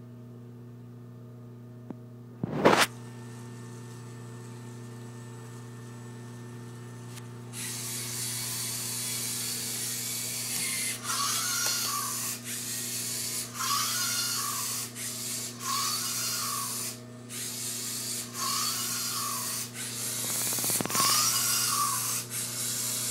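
LEGO Mindstorms NXT robot's servo motors and plastic gears whirring as it runs. At first there is only a steady hum, with one sharp knock a few seconds in. After about a third of the way through a louder, grinding whir sets in and comes and goes, with a rising-and-falling tone every couple of seconds.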